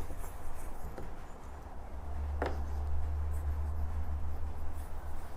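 Nagura dressing stone being rubbed over a wet Japanese finishing whetstone, a gritty wet scraping that raises slurry on the stone's surface. A brief sharp sound comes about halfway through, over a low rumble.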